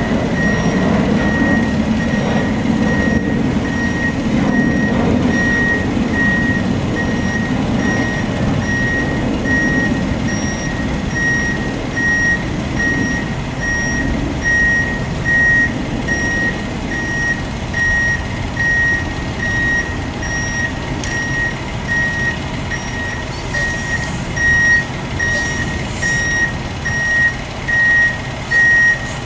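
Truck backup alarm beeping at an even pace, about once a second, over a diesel engine running as the rig reverses.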